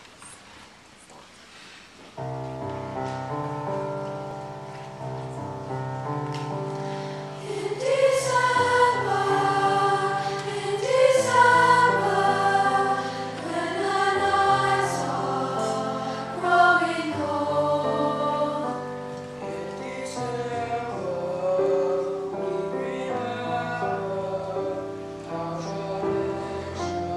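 Young mixed choir singing. A held-chord accompaniment starts about two seconds in, and the voices come in about five seconds later and carry on over it.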